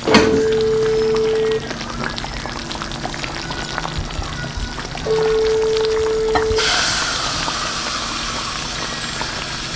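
Background music with a long held note that sounds twice, over a hot earthenware pot of banga soup sizzling. The sizzling hiss grows louder about two-thirds of the way through.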